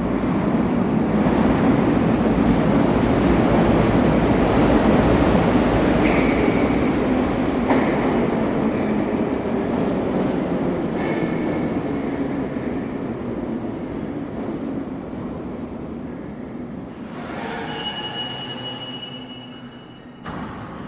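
Subway train running on the rails: a loud, dense rumble with high-pitched wheel squeals coming in from about six seconds in and again near the end. The rumble slowly fades over the second half.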